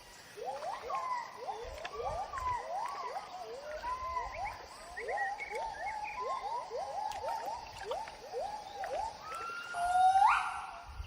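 Gibbon song: a long run of whooping notes that speed up, building to one loud, long rising note near the end.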